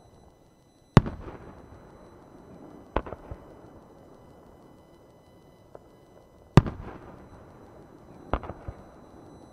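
Aerial firework shells bursting, four sharp booms each trailing off in a rolling echo. The loudest come about a second in and past the middle, and the other two are each followed by a couple of smaller pops.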